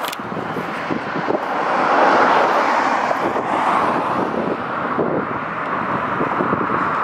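A car driving past on the street, a steady rush of tyre and engine noise that swells about two seconds in.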